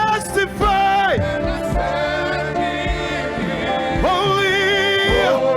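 Live gospel worship music: a singer holds long notes that waver in pitch and slide between them, over a steady sustained accompaniment.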